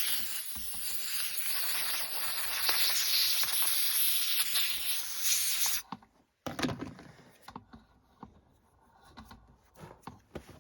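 Compressed-air blowgun hissing as it blows gunk out of a chainsaw's power head, the compressor tank running low on air; the hiss cuts off suddenly about six seconds in, followed by a few light clicks and handling knocks.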